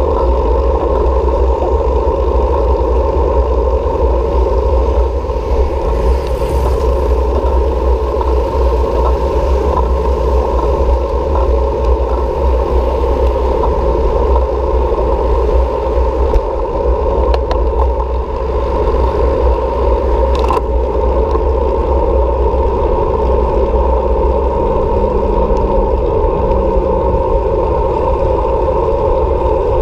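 Steady wind and road noise from riding a bicycle, a constant loud low rumble that runs without a break.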